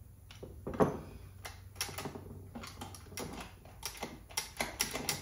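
Irregular small metal clicks and taps from a Motorcraft two-barrel carburetor being handled on a workbench as its choke linkage is fitted, with one louder knock about a second in.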